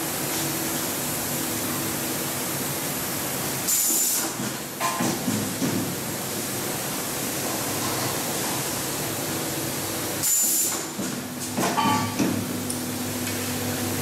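Automatic AC power jack connector assembly machine running with a steady hum. Twice, about four and ten seconds in, a short sharp air hiss is followed by a clatter of the mechanism as it cycles.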